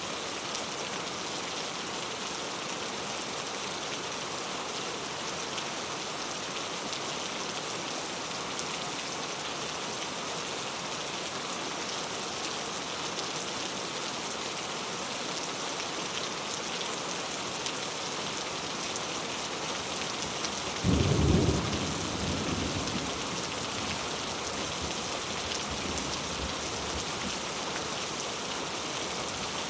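Steady rain falling into a puddle, an even hiss of drops. About two-thirds of the way through, a clap of thunder, loud for about a second, then rumbling away over the next couple of seconds.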